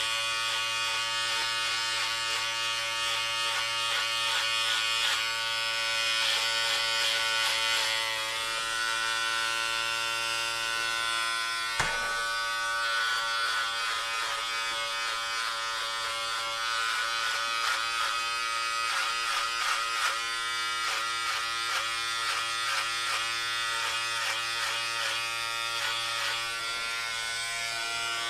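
Electric hair clippers running with a steady buzzing hum, its tone wavering and breaking up irregularly as the blades cut through hair. A single sharp click about halfway through.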